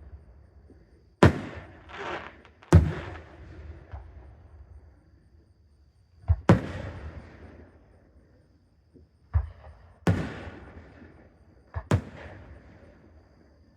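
Aerial fireworks bursting overhead: about six sharp bangs spaced unevenly across the stretch, each trailing off in a fading echo.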